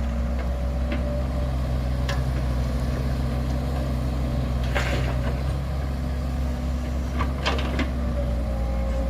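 A machine engine running steadily with a low drone, and a few short clicks or knocks about two, five and seven and a half seconds in.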